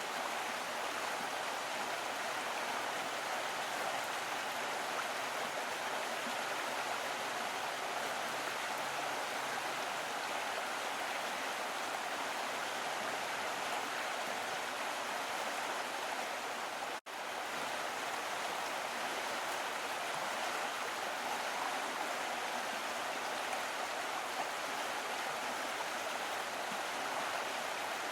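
Small stream flowing steadily, an even rush of running water. About two-thirds of the way through, the sound cuts out completely for an instant and then resumes.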